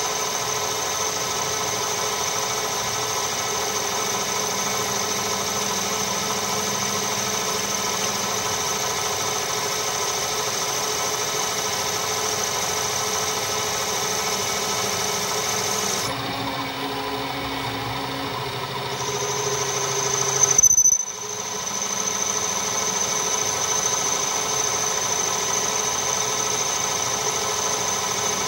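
Metal lathe running with its carbide tool cutting the inner face of a small spinning brake drum: a steady machine whine with several held tones. About sixteen seconds in, the highest tone drops out for a few seconds. Around twenty seconds in, a brief louder burst and a momentary dip come before the steady running resumes.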